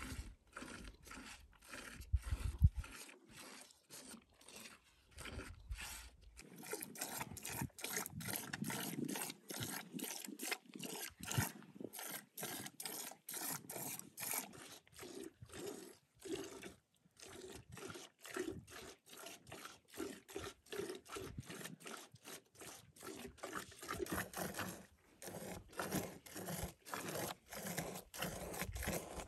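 Cow being milked by hand into a galvanised metal bucket: rhythmic squirts of milk, about two a second, splashing into the froth already in the pail. A few low thumps come in the first few seconds.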